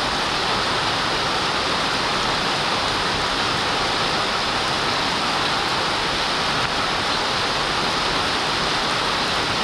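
Continuous, steady rush of water, even and unchanging, like a waterfall, a stream in spate or heavy rain.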